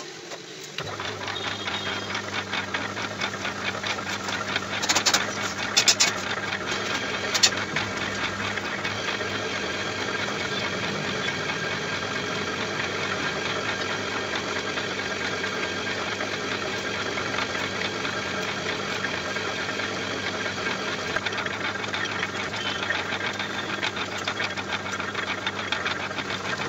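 Lathe starting up about a second in and running steadily, spinning a heavy cast rotavator gearbox housing in its chuck, with a boring bar in the housing's bore. A few sharp clicks or knocks come between about five and seven and a half seconds in.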